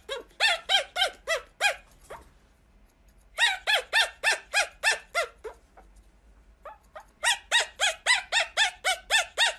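Pomeranian puppy yapping in rapid, high-pitched yips, about four a second, in three bursts with short pauses between them.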